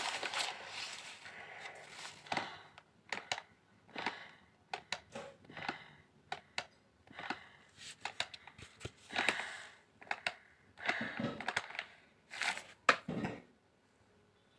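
A paper bag crinkling in short, irregular bursts as a person breathes in and out of it, then falling quiet near the end.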